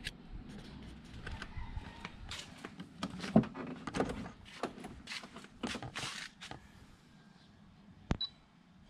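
Handling noise from a handheld camera being carried along, with irregular knocks, scuffs and rustles, then one sharp click about a second before the end.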